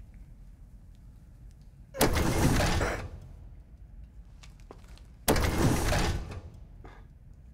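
Two heavy stone-on-stone clunks, each starting suddenly and grinding on for about a second, about three seconds apart: carved stone panels in a tomb wall being pressed in and a hidden mechanism moving.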